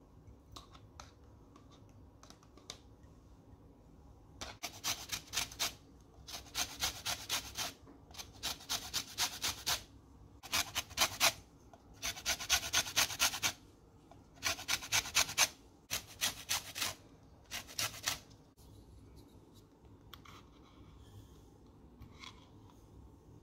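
Lemon rind being grated on a stainless-steel hand grater: rapid scraping strokes in eight bursts of about a second each, with short pauses between. A few faint handling ticks come before and after the grating.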